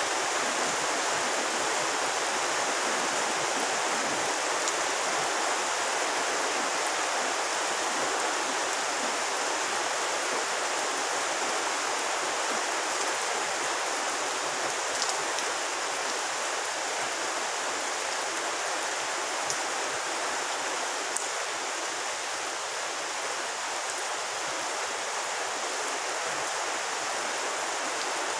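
Steady rain falling on a pond's surface, an even hiss with a few single louder ticks in the second half.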